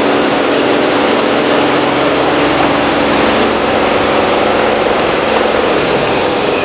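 A machine's engine running steadily: an even, loud rush with a low, steady hum underneath.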